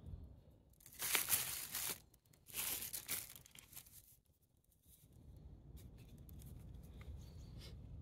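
Two short bursts of rustling, tearing-like noise, the first about a second in and the second just before three seconds, from something handled close to the microphone.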